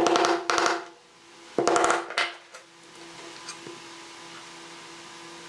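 Hammer tapping a small nail into a pine board: two quick runs of light taps, the second starting about a second and a half in.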